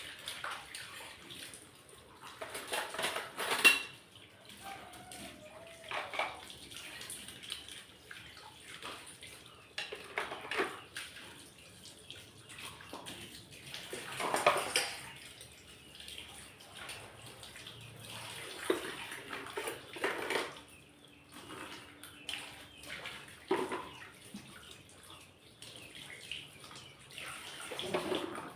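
Water splashing with the clatter and clink of dishes and containers being washed by hand in a sink, in irregular bursts every second or few.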